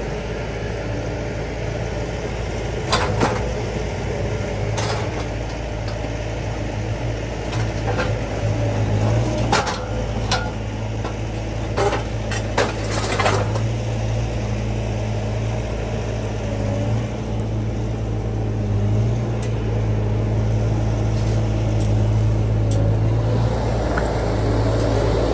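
Skid steer engine running steadily while its grapple attachment works, with several sharp metallic knocks and clanks, a cluster of them partway through.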